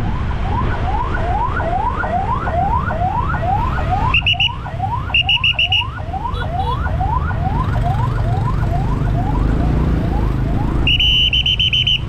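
Ambulance siren wailing in a fast yelp, rising sweeps about three a second, over the low rumble of traffic. A shrill trilling whistle, as used for directing traffic, cuts in with short blasts about four and five seconds in and again near the end.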